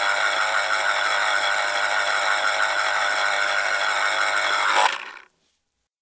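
An electric kitchen appliance's motor running steadily, with a low hum and a mesh of steady high whining tones, then cutting off abruptly about five seconds in.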